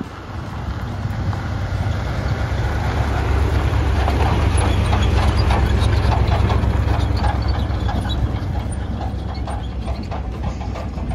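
A 1984 Chevy 2500 wrecker's big-block 454 V8 running as the truck moves over gravel, its low rumble swelling to a peak around the middle and then easing. A steady rattle of clanks and clicks rides over the engine.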